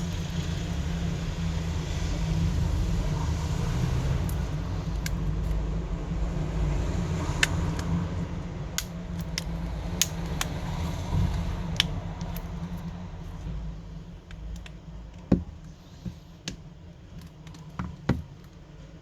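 Scattered sharp clicks and ticks of a tool prying a smartphone's middle frame loose, its clips letting go, more frequent in the second half. A steady low rumble underneath eases off after about 14 seconds.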